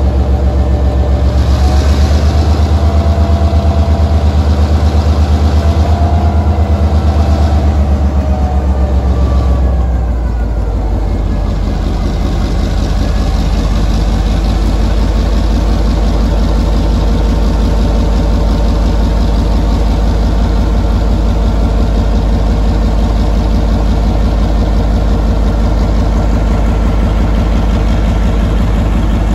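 EMD G12 diesel-electric locomotive's EMD 567C engine running close by, loud and steady. About ten seconds in, its note drops and settles to a slightly quieter, lower pitch.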